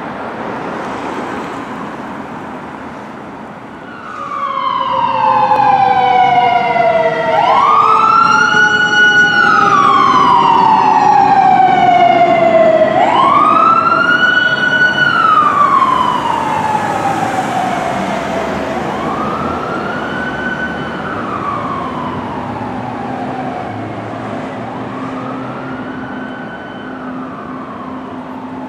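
Fire engine siren wailing as the truck passes. Each cycle rises quickly to a high note, holds briefly, then falls slowly, about every six seconds. The siren comes in loud a few seconds in and fades toward the end.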